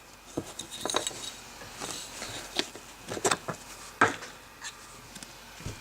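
Trading cards being handled: a run of irregular light clicks and short rustles of cardboard.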